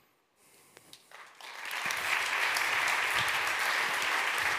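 Audience applauding: brief quiet, then clapping starts about a second in and swells to a steady level.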